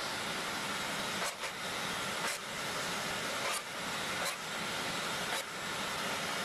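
Steady hiss of workshop machine noise, with about five light knocks about a second apart as a board is slid along a miter saw fence.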